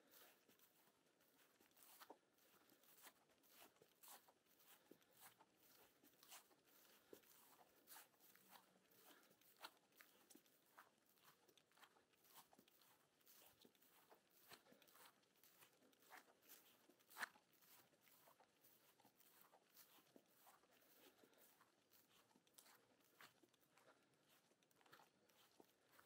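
Faint footsteps of a person walking outdoors, about two steps a second, with one sharper click about two-thirds of the way through.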